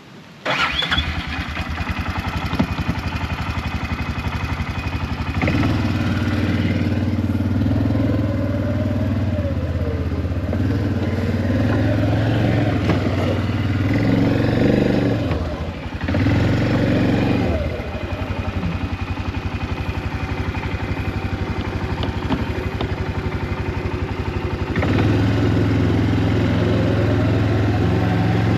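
A small vehicle engine comes in abruptly about half a second in and runs steadily as the vehicle is ridden, its pitch rising and falling with the throttle several times.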